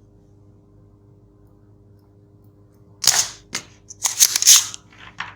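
A metal tool working on a circuit board: a cluster of short, sharp clicks and scrapes starting about three seconds in, over a steady low hum.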